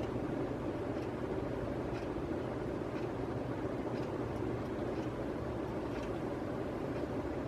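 Casablanca Panama ceiling fan running at a steady speed: an even whir of motor and moving air, with a faint tick about once a second.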